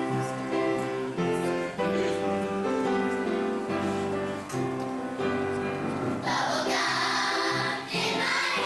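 A choir sings a song, held notes changing every half second or so.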